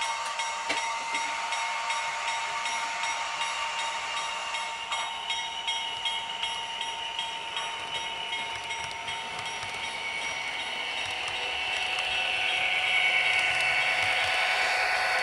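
HO scale model Amtrak Surfliner train rolling past on the layout, its wheels ticking over the track joints. A high whine from the pushing locomotive swells and grows louder near the end as the locomotive comes by.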